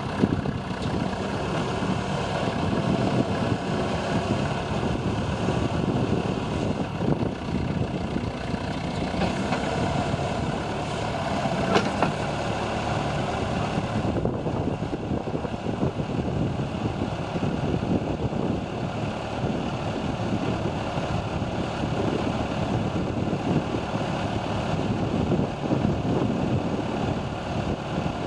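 John Deere 310A loader backhoe's engine running steadily, with a single sharp click about twelve seconds in.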